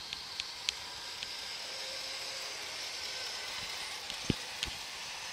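O-gauge model steam locomotive and passenger cars rolling along the track, a steady hiss that swells in the middle as the train passes close. A few sharp clicks are scattered through it, the loudest a little after four seconds.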